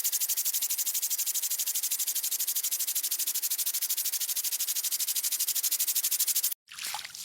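Impact sprinkler spraying in a rapid, even train of hissing ticks, the fast return sweep of its arm. It cuts off suddenly near the end.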